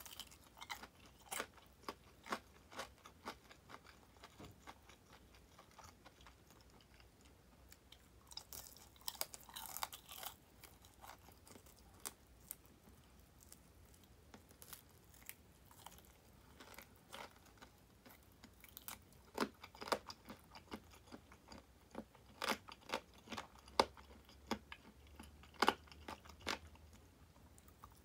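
A person biting and chewing crispy batter-fried chicken drumettes ('tulip' wings): irregular, sharp crunches of the fried coating, up close. The crunches come thickest about a third of the way in, and the loudest few fall in the last third.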